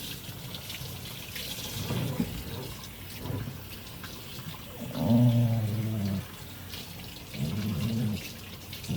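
Wire-haired dachshund grumbling in low, drawn-out growls, once about five seconds in and again near the end: harmless grumbles of protest at being bathed. Water runs in the background.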